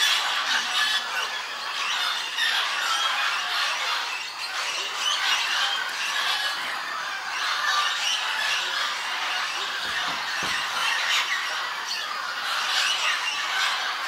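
A large flock of parrots calling all at once, many short overlapping calls merging into a dense, unbroken chatter.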